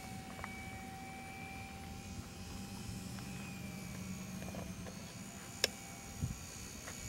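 Electric motor and propeller of a small RC float plane whining in flight, a thin steady whine that drifts slightly in pitch. A sharp click about two-thirds of the way in, then a low thump.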